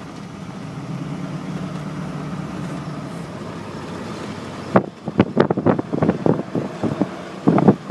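Steady low road and engine noise inside a moving car. About five seconds in, a run of sharp, irregular knocks and thumps begins, the jolting of the car on a rough road.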